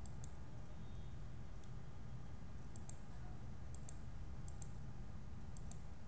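Computer mouse button clicking about six times, each click a quick press-and-release pair of ticks, over a steady low hum.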